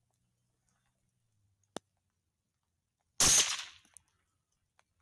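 A single rifle shot about three seconds in, loud and sudden with a short fading echo, preceded by one sharp click a little more than a second earlier.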